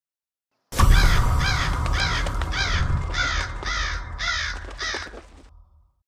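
Crows cawing in a steady series of about eight caws, roughly two a second, over a low rumble. The sound starts abruptly and fades out just before the end.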